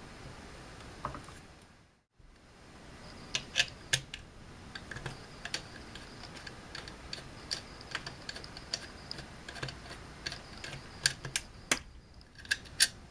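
Irregular small metal clicks and knocks as parts of a Norinco JW-14 .22 rifle are handled during disassembly, sharpest in a cluster about three and a half seconds in and again near the end.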